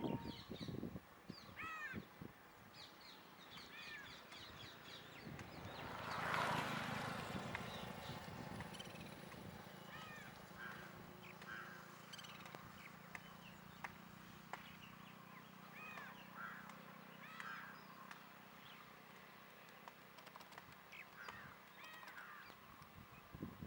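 Outdoor birdsong: various birds giving short, separate chirping calls through the whole stretch. About six seconds in, a rush of noise swells and fades, leaving a low hum.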